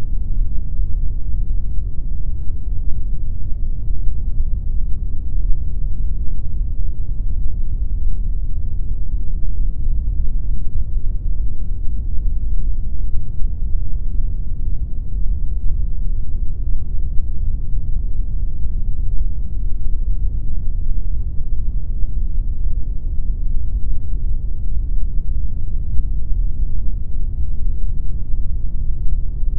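Steady pink noise: a continuous, even, deep rushing sound, heavy in the low end with little high hiss, unchanging throughout.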